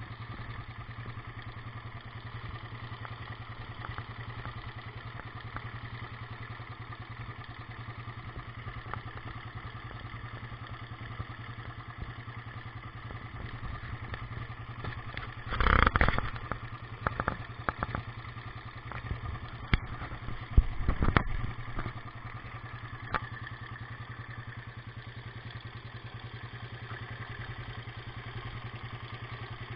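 Suzuki Satria FU 150's single-cylinder DOHC engine idling steadily with a noisy mechanical rattle, the cam-chain noise the owner points to. Short louder knocks come about halfway through and again a few seconds later.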